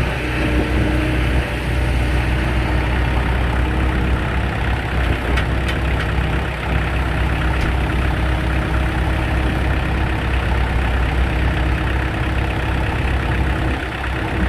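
Diesel engine running steadily at a constant speed, driving the hydraulic pump of a home-made hydraulic log splitter.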